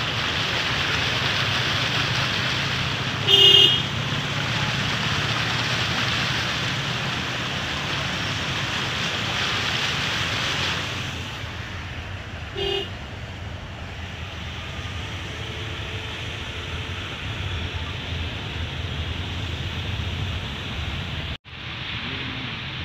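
A Toyota car driving through a flooded road: a steady rushing hiss of water thrown up by its tyres, with engine hum underneath. A car horn gives two short toots, about three seconds in and again about thirteen seconds in. About eleven seconds in, the water rush drops to quieter road noise.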